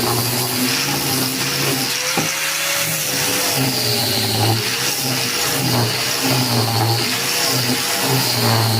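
Angle grinder running with a homemade wooden sanding disc, its high whine dipping and recovering repeatedly as it is pressed into the work. A single click comes about two seconds in.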